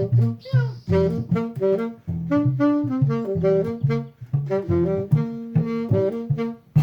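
Instrumental jazz-style music: a saxophone plays a busy run of short notes over a walking bass line.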